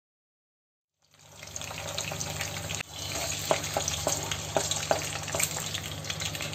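Eggs and green chillies sizzling in oil in a non-stick kadai, fading in after a second of silence. A wooden spatula knocks and scrapes against the pan about five times in quick succession as the eggs are broken up.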